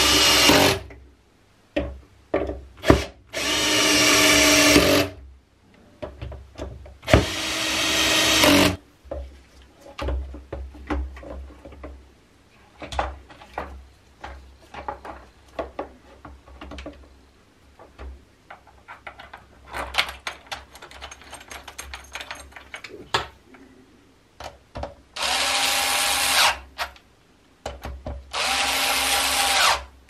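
Cordless electric screwdriver driving screws into a coffee machine's plastic frame and metal bracket, running in five short bursts of one to two seconds each. Between the bursts come scattered clicks and knocks of plastic parts being handled and fitted.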